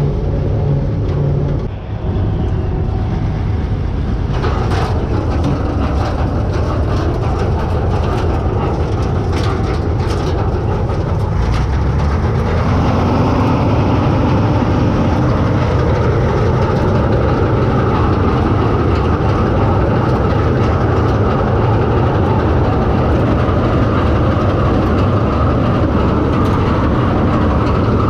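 Bizon Z056 combine harvester running steadily, its diesel engine and machinery making a continuous heavy drone with scattered rattles. About twelve seconds in, the engine note rises and the sound grows a little louder.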